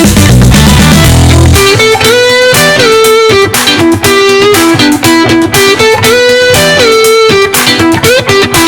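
Background music led by electric guitar with sliding melody notes over a steady beat, with heavy bass in the first second or so.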